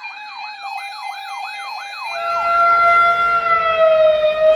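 A siren yelping in quick rising sweeps, about three a second. About two seconds in it changes to a louder, steady wail that slowly drifts lower, with a rumble underneath.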